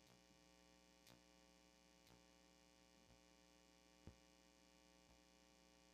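Near silence: a faint, steady electrical hum in the recording chain, with faint ticks about once a second.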